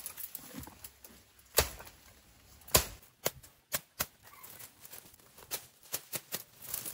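Irregular sharp knocks and clicks over a quiet background, the loudest about a second and a half in and again near three seconds in.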